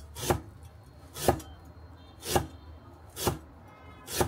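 Kitchen knife slicing ginger on a cutting board: five cuts about a second apart, each ending in a sharp knock on the board.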